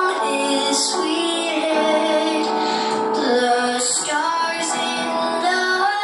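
Music: a woman singing a slow song with long held notes over instrumental accompaniment.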